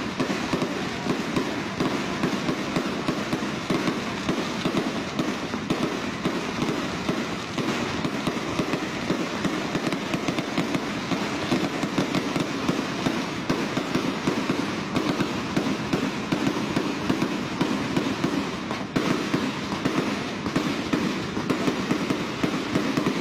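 Fireworks and firecrackers crackling in a dense, unbroken stream of rapid pops.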